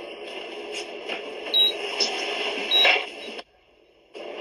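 Pasta cooking water poured off into a sink, a steady rushing with a few knocks of the pot. The sound cuts out for under a second near the end.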